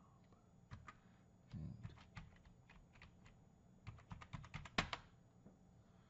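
Computer keyboard typing: scattered keystrokes, then a quick run of keys about four seconds in that ends in one louder click.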